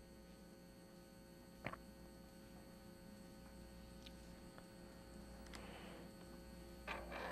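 Near silence with a steady low electrical mains hum, broken by a few faint clicks.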